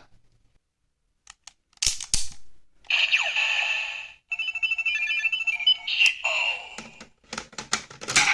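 A few plastic clicks as a Kamen Rider Ride Watch toy is pressed and set, then its electronic sound effects: a falling sweep, a run of steady electronic beeps and chimes, and a last burst near the end.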